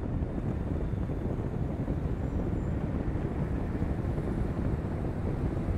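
Steady wind rush and buffeting on the microphone of a camera mounted outside a car at highway speed, mixed with tyre noise on a concrete road surface.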